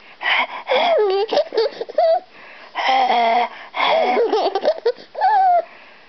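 Baby laughing and giggling in several short runs of high, rising and falling squeals, with breathy, wheezy stretches between: the chest wheeze of a baby with a cold.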